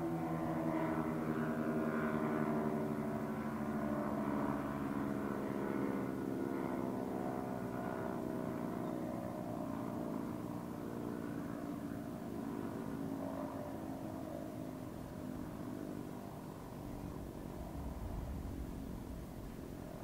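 Sentry 10V1T outdoor warning siren winding down after its three-minute alert signal. Its tone falls slowly in pitch and fades away over about fifteen seconds.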